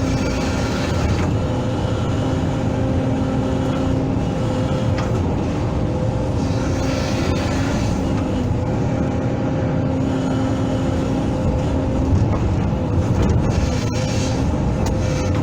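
Hydraulic excavator's diesel engine running steadily as it digs, with a low hum that comes and goes and a few sharp knocks near the end.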